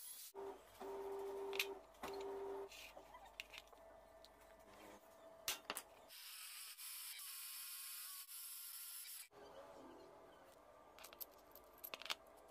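Drill press boring through a small steel plate, an even hiss of cutting lasting about three seconds, followed by a few light metallic clicks as a bolt and nut are handled.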